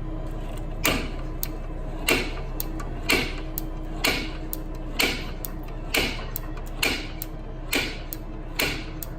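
Hammer blows on a steel punch, about one a second, nine in all, with lighter taps between, driving a rusted-in stud out of the Saab's exhaust part. A steady low hum runs underneath.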